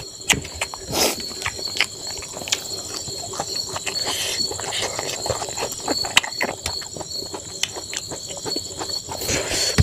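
Close-up eating sounds of rice and greens eaten by hand: wet chewing and mouth smacks, and fingers scraping and pressing rice on a steel plate. Insects chirp steadily in the background as a high, even pulsing trill.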